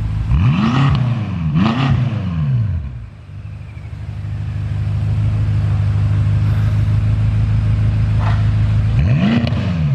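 BMW F10 M5's twin-turbo V8, breathing through newly fitted AMS high-flow downpipes, blipped twice in quick throttle revs, then idling steadily, with another rev near the end.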